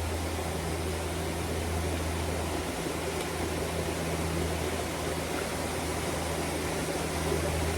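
Waterfall's steady rush of water, with a low steady hum underneath.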